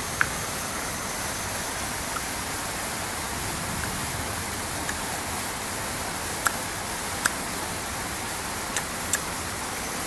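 A steady rushing hiss of background noise, with a few short, sharp clicks scattered through it, two of them close together near the end.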